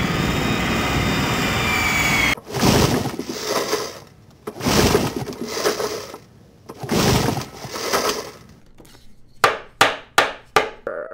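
Off-screen crashing and clattering sound effects. A dense rushing noise with a faint falling whine runs for about two seconds, then come three long crashes, then four or five short, quick downward swoops near the end.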